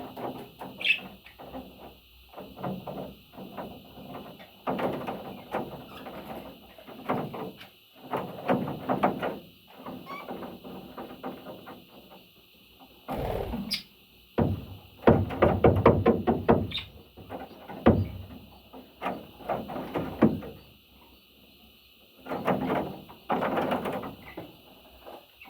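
Parrots calling and chattering in a string of irregular bursts, loudest in the middle, with a steady high hiss underneath.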